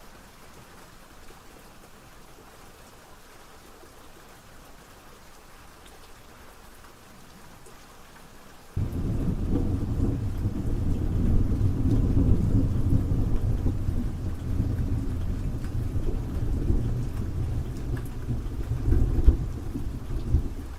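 Steady rain hiss, then about nine seconds in a loud, deep rumble of thunder sets in abruptly and keeps rolling over the rain, swelling once more near the end.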